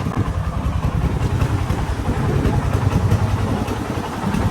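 Single-cylinder diesel engine of a công nông farm truck chugging steadily, a fast even run of low thuds.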